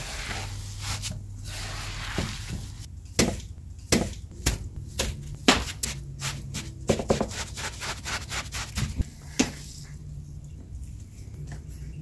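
Gloved hands squishing and rubbing coarse salt dough, then pressing and patting it onto a metal baking tray with a quick run of sharp taps and clicks. It goes quieter for the last two seconds.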